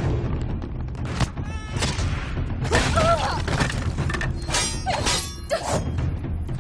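Film fight sound effects: thuds and a crash of breaking wood, with a short cry about three seconds in, over a low music bed.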